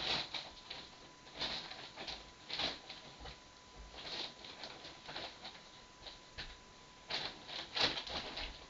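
Paper being handled: irregular short rustles and scrapes, loudest near the end.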